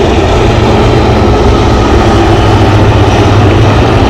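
Formation of HAL Dhruv helicopters with four-blade main rotors flying past, giving a loud, steady rotor and engine drone with a deep hum.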